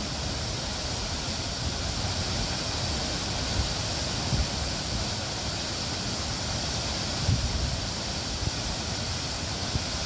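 Whangarei Falls, a waterfall plunging into its pool, giving a steady rush of falling water, with low rumbles of wind on the microphone now and then.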